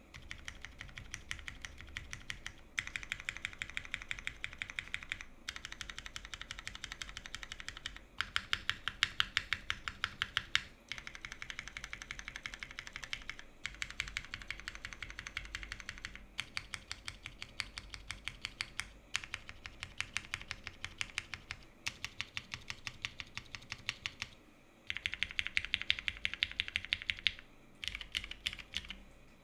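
Fast typing on a TGR Jane v2 custom mechanical keyboard: lubed and filmed Cherry MX Brown tactile switches in a top-mount polycarbonate half plate, under GMK doubleshot ABS keycaps. Dense runs of keystrokes come in stretches of a few seconds, broken by brief pauses.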